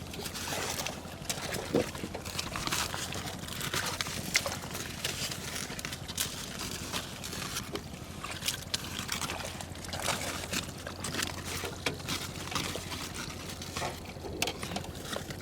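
Water splashing and sloshing, with many short, irregular splashes.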